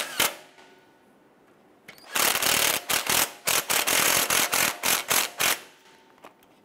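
Cordless impact wrench hammering a bolt down in short trigger bursts. There is a brief burst right at the start, then a longer run of hammering with short pauses from about two seconds in until near the end, as the bolt is gently snugged.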